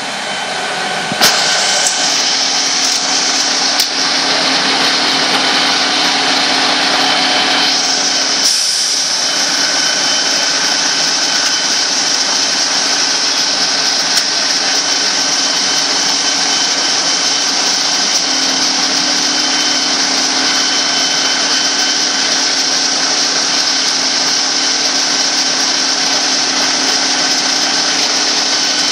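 Fire engines running steadily: a loud, even mechanical drone with a constant hum and a high whine, which grows louder about a second in.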